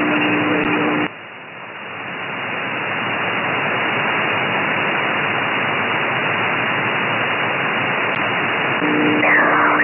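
Shortwave receiver static in lower sideband from an SDRplay RSPduo on the 80 m band, with a sharp cutoff above about 3 kHz. About a second in, a steady low tone stops and the hiss drops sharply, then climbs back over the next few seconds. The tone returns near the end.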